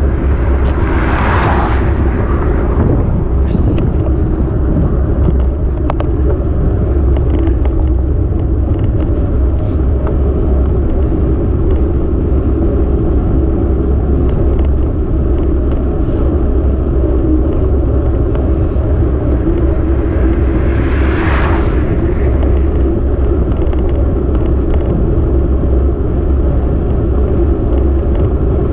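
Steady low rumble of wind buffeting the microphone of a camera moving along a road, with road noise. Two brief rising-and-falling whooshes, about a second in and again around twenty-one seconds in, are vehicles passing.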